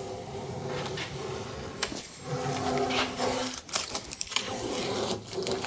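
Blue painter's tape being peeled off a painted wooden cabinet face frame, with short ripping noises as the strips come away, over a steady background hum.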